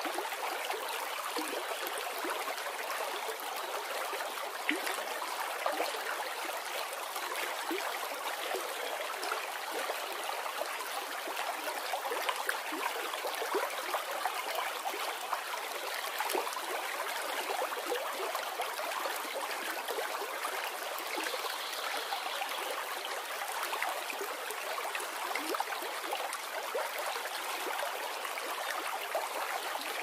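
Shallow river flowing over and around rocks: a steady rush of water with many small splashes throughout.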